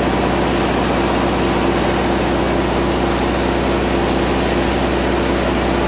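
Farm tractor engine running steadily at idle, turning a belt-driven grain mill grinding flour. Its hum holds an even pitch and level.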